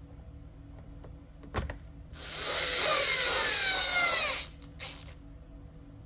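A handheld power drill-driver runs for about two seconds on a screw, its motor whine falling in pitch as it slows. A sharp click comes just before it.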